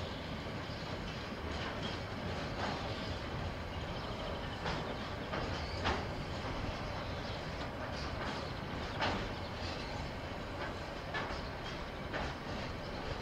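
Train passing on the line: a steady running noise with a sharp clack of the wheels over rail joints every second or so.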